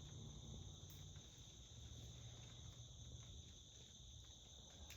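Faint, steady high-pitched chorus of insects, with a faint low rumble underneath.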